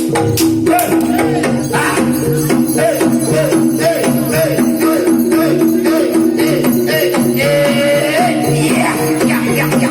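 Jaranan dance music: gong-like pitched percussion holding steady notes under a repeating melody of swooping notes, with drum strokes and jingling rattles keeping a steady beat.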